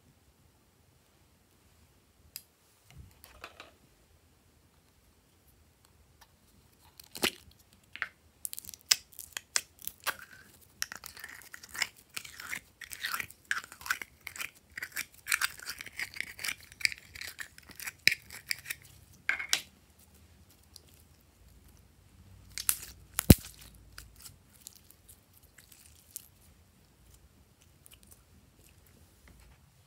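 Clear blue glitter slime squeezed and stretched between the fingers, making a dense run of small crackling clicks and pops. The run starts about seven seconds in and stops near twenty seconds. A few more squishes and one sharp click follow a few seconds later.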